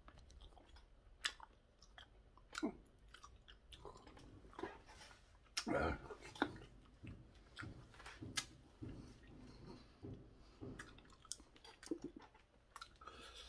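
Chewing of stir-fried pork cartilage, with scattered sharp crunches and clicks between softer mouth sounds.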